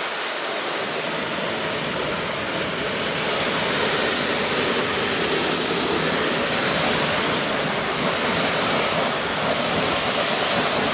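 Pressure washer water jet spraying steadily onto a car's alloy wheel and tyre, rinsing off wheel cleaner.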